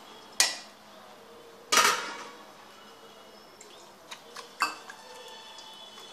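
Metal idli plate clanking against a steel plate twice as it is turned over to tip out freshly steamed idlis, each clank ringing briefly, followed by a few lighter metal clinks a little past four seconds in.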